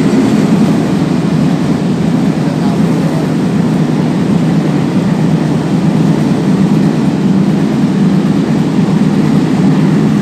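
A train crossing a railway bridge: a loud, steady, deep rumble of wheels and cars on the rails.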